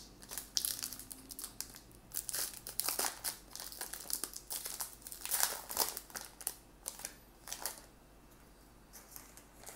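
Wrapper of a Topps Fire baseball card pack crinkling and tearing as it is opened by hand. Irregular crackles, loudest about five and a half seconds in, dying down to a few faint ticks near the end.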